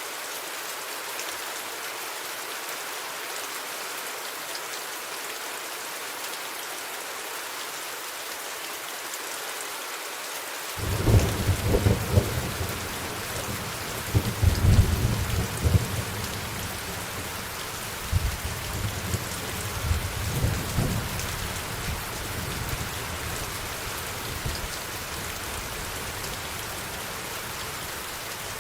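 Steady rain falling, with a roll of thunder that breaks in suddenly about eleven seconds in, rumbles loudest in the middle, and dies away in a few weaker rumbles.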